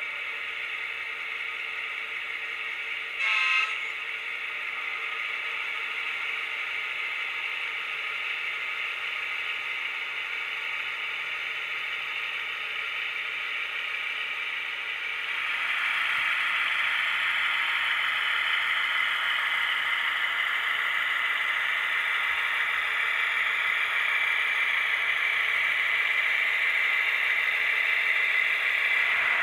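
HO-scale model of a Victorian Railways W-class diesel shunter running, its sound decoder playing a steady diesel engine sound, with one short horn blast about three and a half seconds in. The engine sound grows louder and brighter about halfway through.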